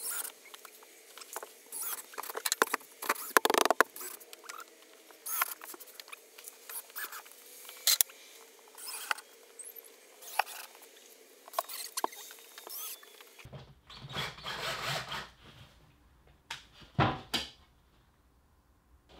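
Cordless drill-driver fastening plywood wall panels: a dense run of short clicks and knocks. About two-thirds of the way through the sound changes to a few separate, louder knocks with quiet between them.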